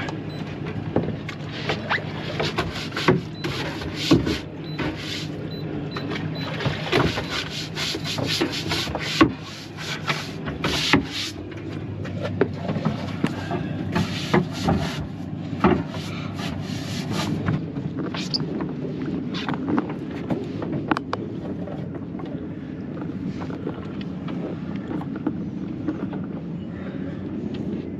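Knocks, clatter and rubbing of gear being handled on a boat's deck, dense for the first two-thirds and sparser after, over a steady low hum.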